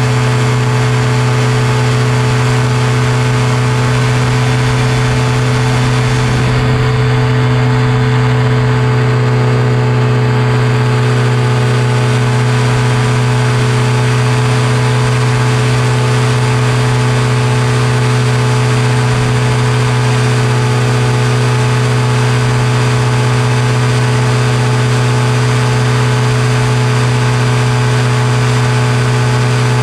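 Powered paraglider trike's engine and propeller running steadily at cruise power in flight, a constant loud drone with a strong low hum, heard close up with airflow noise.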